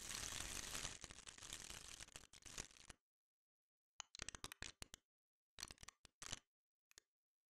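Synthesized crumpling of a thin sheet: a dense crackle of many small clicks for about three seconds, with stochastically added buckling clicks layered on the detected buckling events. After a second of silence come only sparse, separate clicks from the detected buckling events alone.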